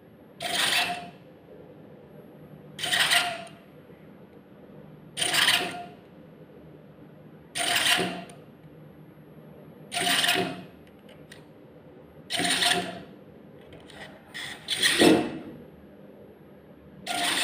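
Two cheap hobby-grade servo motors of a two-link robot arm whirring in about eight short bursts of half a second each, roughly every two and a half seconds, as the arm jerks through its moves, with a few lighter ticks near the end.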